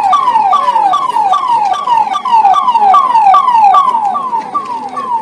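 Electronic siren sounding a fast, repeated falling wail, about two and a half sweeps a second, loud, easing off near the end.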